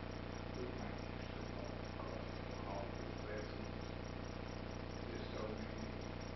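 Steady electrical hum and buzz with a fast, even ticking, under a faint, indistinct voice.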